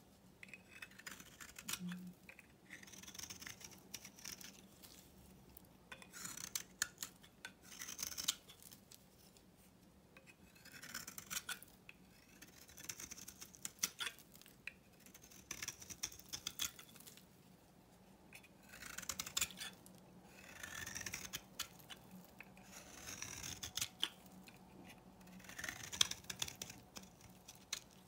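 A snap-off utility knife blade shaving curls off a bar of old, dry soap: repeated crisp scraping strokes with crackly clicks, one every second or two with short pauses between.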